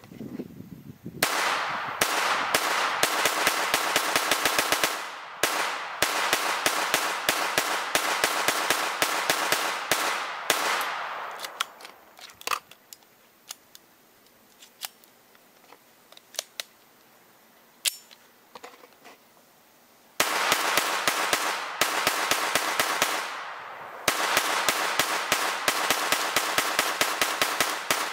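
AR-15 rifle firing 5.56 mm rounds in rapid semi-automatic strings of roughly three shots a second, each shot sharp and echoing. Near the middle the firing stops for about eight seconds, with only a few scattered clicks, while the rifle is lowered for a magazine change; then rapid fire starts again.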